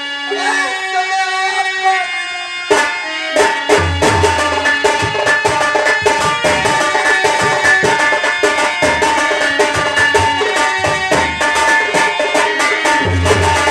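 Background music with tabla: held melodic tones at first, then from about three seconds in a fast, steady tabla and drum beat over a low bass.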